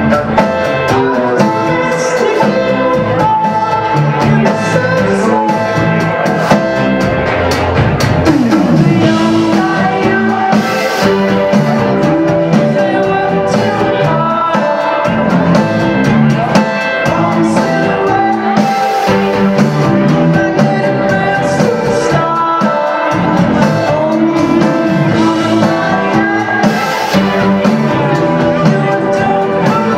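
Indie band playing live: drum kit and guitar with singing, the full band playing continuously.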